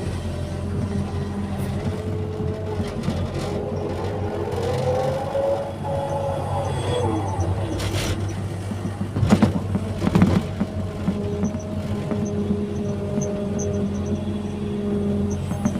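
Excavator's diesel engine running steadily under load while the hydraulics whine, rising and falling in pitch as the arm moves. Two sharp knocks come about nine and ten seconds in.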